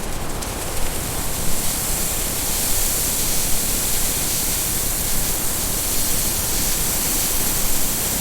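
Steam hissing steadily from a restored steam locomotive, an even, bright rushing noise with no pitch or rhythm.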